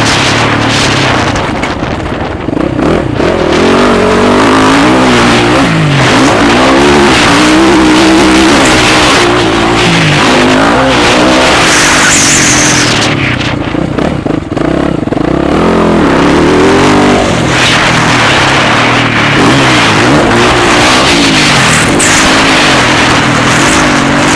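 Motocross bike engines running hard on the track, their pitch repeatedly rising and dropping back as the throttle is worked.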